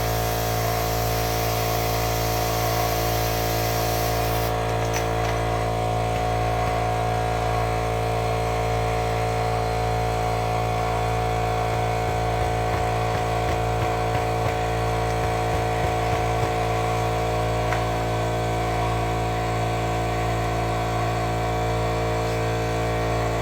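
Air compressor motor running steadily, inflating a scooter tire to seat its bead. A high hiss of air runs over it and stops about four and a half seconds in.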